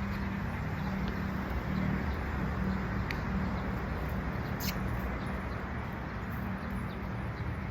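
Steady background noise with a low wavering hum and a few faint clicks.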